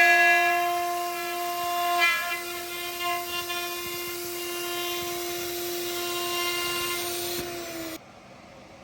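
CNC router spindle running at speed while carving wood: a steady high-pitched whine with a hiss of cutting, dipping briefly about two seconds in. The whine drops slightly in pitch and then cuts off suddenly near the end.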